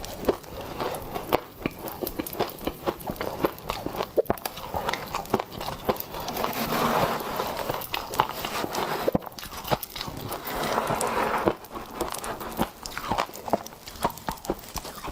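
Close-up biting and chewing of crunchy freezer frost with popping candy, a string of sharp crunches throughout, with two stretches of dense crackling about six and ten seconds in.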